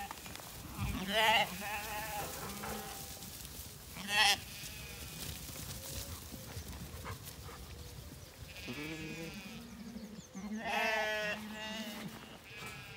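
Zwartbles sheep bleating: several separate wavering calls, the loudest about four seconds in and a longer one near the end.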